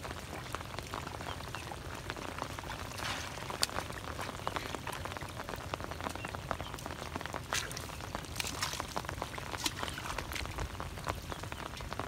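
Shallow muddy water of a flooded rice paddy splashing and squelching as feet and hands move through it, over a steady patter of rain, with many small drip-like clicks and a few louder splashes.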